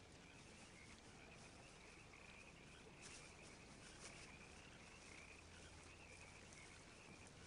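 Faint natural ambience: a steady, high-pitched chorus of calling animals, with two soft clicks about three and four seconds in.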